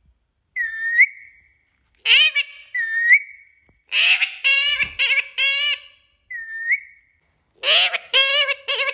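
Pet parrot calling: short whistled notes that rise at the end, alternating with clusters of harsh, squawking calls, in several bursts with short gaps between them.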